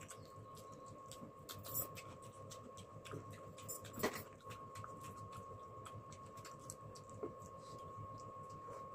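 Chewing and eating sounds: many small wet mouth clicks and smacks from someone eating noodles and chicken, with one louder click about four seconds in, over a faint steady hum.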